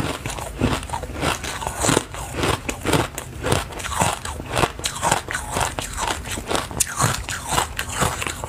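Close-up biting and chewing of a stick of coloured powdery foam ice: crisp crunches in a steady run, two to three a second.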